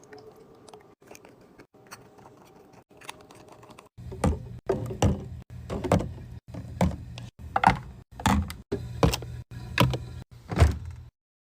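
Hard objects being set down and knocked against each other, about one thunk a second, over a steady low hum; light clicks and taps come before. The sound cuts off suddenly near the end.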